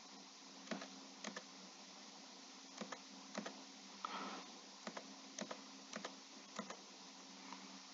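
Faint computer mouse clicks, single and in quick pairs, irregularly every half second to a second and a half, as layers are switched off one at a time, over a low steady hum.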